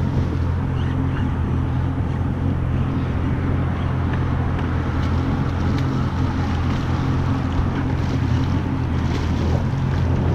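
A Yamaha 190 FSH boat's engine idling steadily, with wind buffeting the microphone. Water splashes as a hooked rockfish thrashes at the surface beside the boat.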